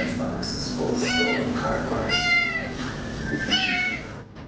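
A cat meowing over and over, about three long calls that each rise and then fall in pitch.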